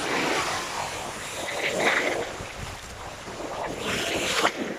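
Small sea waves breaking and washing through shallow water, with surges about two and four seconds in and some wind on the phone's microphone.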